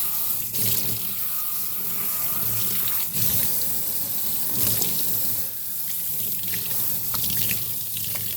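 Tap water running into a sink and splashing unevenly as a vacuum's pre-motor filter is rinsed under it.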